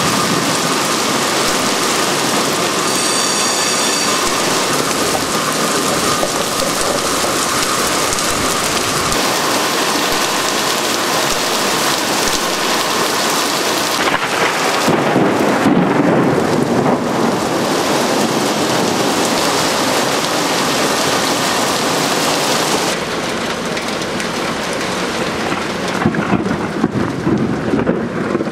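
Heavy thunderstorm rain pouring down onto the street and roofs, a dense steady hiss of falling and splashing water that shifts abruptly in tone about halfway and again near the end.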